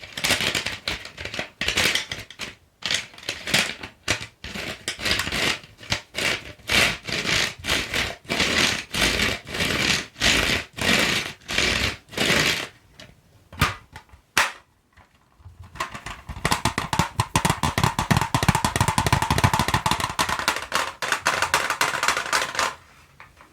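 Colored pencils handled close to the microphone: a run of short scratchy strokes, several a second, a pause about halfway with a few single clicks, then a faster, denser run of strokes for about six seconds.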